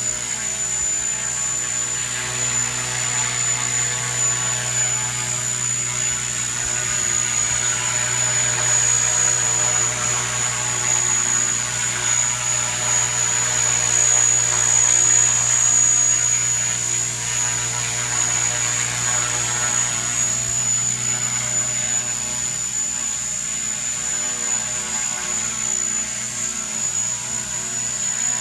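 Radio-controlled model helicopter hovering, its rotors giving a steady buzzing hum under a constant high-pitched whine, a little louder past the middle.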